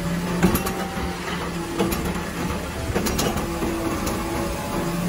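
Automated side-loader garbage truck running while its hydraulic lift arm tips a wheeled trash cart into the hopper and lowers it, with a steady hum and three sharp clunks about a second apart.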